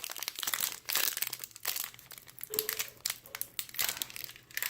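Crinkling plastic wrapper of a basketball trading-card pack being worked and torn open by hand, an irregular run of crackles; the wrapper is tough to open.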